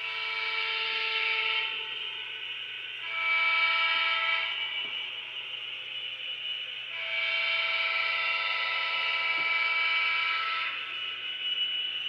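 HO-scale Atlas Gold GP40-2 model locomotive's DCC sound decoder sounding a diesel horn three times, two blasts of under two seconds and then one of nearly four seconds, over a steady low hum.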